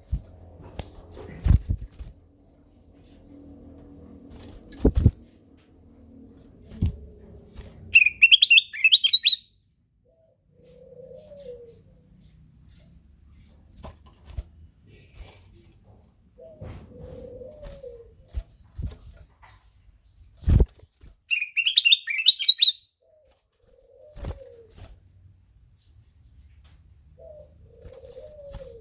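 Kutilang emas bulbul singing: two short, bright phrases of quick chirping notes about thirteen seconds apart. Soft low notes come in between, along with a few sharp knocks and a steady high-pitched tone.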